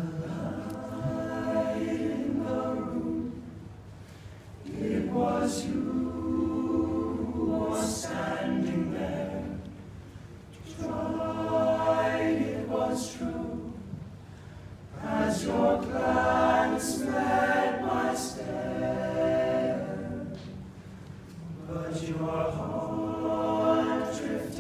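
All-male a cappella group singing in close harmony with no instruments. The singing comes in phrases, with brief lulls between them.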